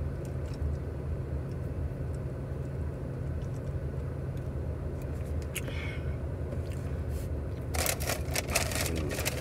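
Idling car engine heard from inside the cabin, a steady low hum. Nearly eight seconds in, a crinkly rustle of paper packaging starts and keeps going.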